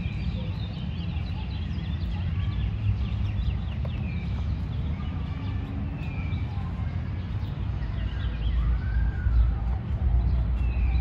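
Birds chirping and calling, with many short whistles and downward-sliding notes, over a steady low rumble that grows louder in the last few seconds.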